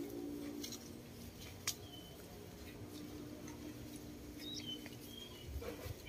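Faint outdoor ambience: a steady low hum with a few short, high chirps and light clicks scattered through it, and some soft low thuds near the end.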